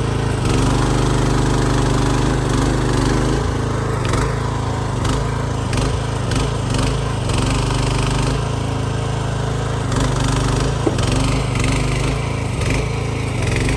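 Small gasoline engine of a mini excavator running steadily under load while it digs and moves debris, with a few sharp knocks along the way.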